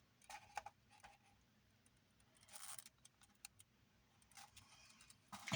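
Near silence with a few faint, brief clicks and short rustles.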